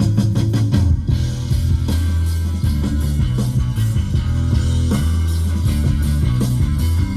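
Guitar-driven rock music with heavy bass notes, played through a car sound system fitted with two 6.5-inch subwoofers.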